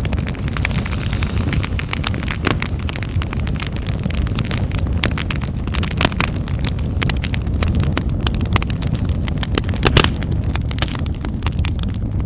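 Wood fire in a fireplace crackling: many irregular sharp snaps and pops over a steady low rumble of the flames, with a louder pop near the end.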